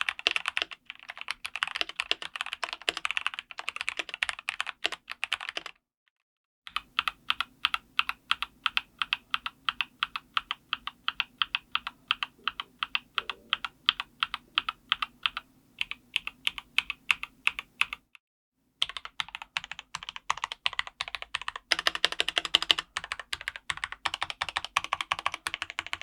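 Typing on a Dustsilver D84 mechanical keyboard with Gateron G Pro Red linear switches: a rapid run of keystroke clacks. It stops dead twice, about 6 s and 18 s in, with a steadier, evenly paced run of strokes between the breaks.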